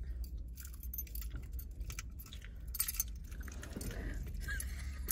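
Light jingling and clinking of small metal objects being handled inside a car, over a steady low hum.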